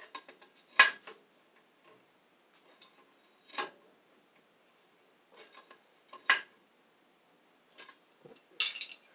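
Sharp metallic clinks and scrapes, a few spaced seconds apart with a quick cluster near the end, as an Amtrol Extrol boiler expansion tank is twisted by hand off its threaded pipe fitting.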